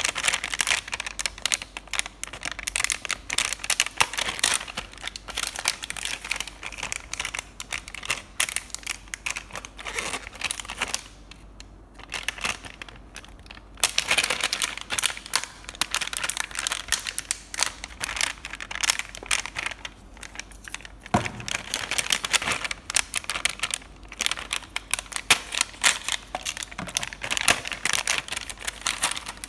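Clear plastic packaging around a pack of felt-tip markers crinkling and crackling as hands handle and turn it, with a short lull about halfway through.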